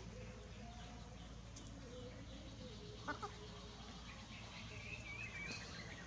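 Faint chicken sounds: two quick low clucks about three seconds in, then a chick's wavering peep near the end, over a steady low hum.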